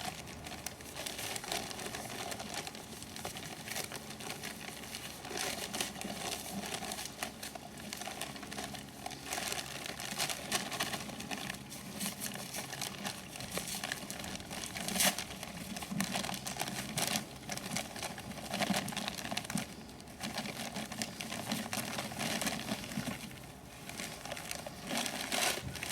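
A bag of concrete filler powder crinkling and rustling continuously as it is held and tipped to pour the powder into a bucket of water.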